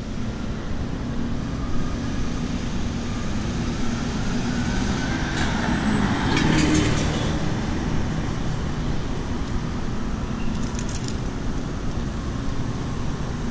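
Street traffic noise beside a city road, with one vehicle passing and swelling to its loudest about six seconds in. A few light high clicks near eleven seconds.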